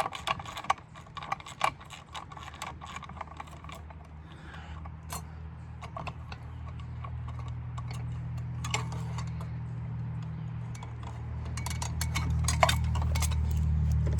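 Metal hand tools clicking and knocking against outboard-motor parts, in irregular taps, while a steady low hum builds up from about four seconds in and grows louder.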